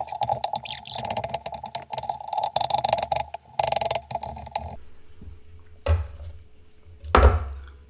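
Chef's knife rapidly chopping cucumber into small dice on a wooden cutting board: a fast run of knife taps that stops about five seconds in, followed by two single dull knocks.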